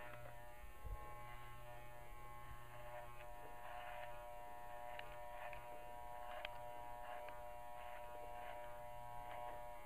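Electric dog-grooming clippers buzzing steadily as they shave a dog's coat, with faint scratchy sounds of the blade working through the fur.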